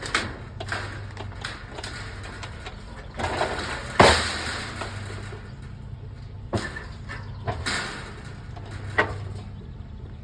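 Scrap metal being handled and loaded: scattered knocks and clatters, the loudest about four seconds in, over a low steady hum.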